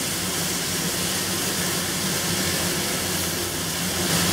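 Shrimp, garlic and cilantro sizzling in hot oil in a wok over a gas burner at medium-high heat, a steady hiss with a low hum beneath.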